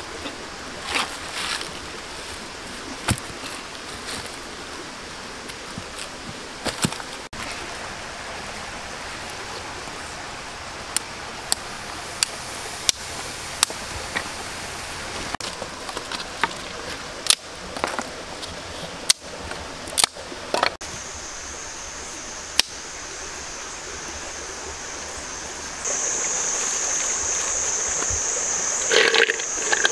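A steady rush of a small stream, with scattered sharp knocks and clicks as rocks and sticks are handled and set around a fire pit. A steady high-pitched buzz comes in about two-thirds through and gets louder near the end.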